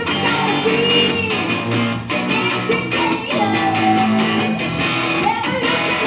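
A woman singing live into a microphone while playing electric guitar, a rock song with drawn-out, gliding vocal notes over the guitar.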